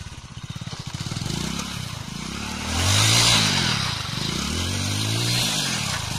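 Small motorcycle engine running with quick firing pulses, then revved up and down over and over, rising and falling in pitch about every second and a half. Underneath, a hiss from the rear tyre scrubbing on loose dirt as the bike is spun in tight circles.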